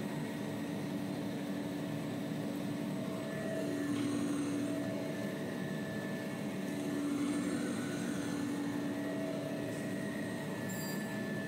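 Automatic maxi-roll paper band saw cutting machine running: a steady mechanical hum with a few held tones, swelling slightly twice.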